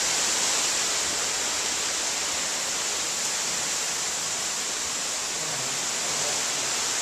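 Heavy rain pouring down in a storm, a steady, dense hiss with no breaks.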